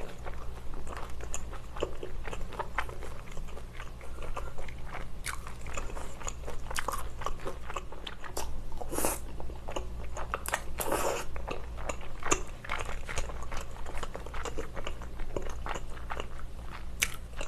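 Close-miked chewing of chewy rice cakes (tteokbokki) and fried snacks: a dense run of wet mouth clicks and smacks over a steady low hum.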